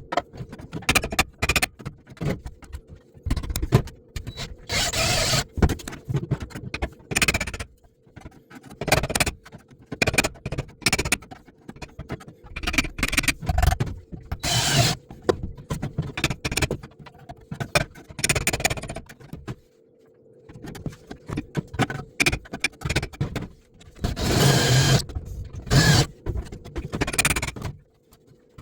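Spot-weld removal on a 1967 Bronco's sheet-steel rear floor pan: irregular short bursts of metal cutting and scraping, with sharp knocks in between. A faint steady hum runs underneath.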